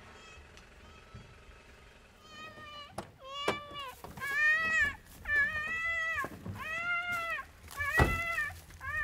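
A young girl crying in a run of repeated wails, each about half a second to a second long, starting about two seconds in. Two sharp knocks cut in, about three and eight seconds in.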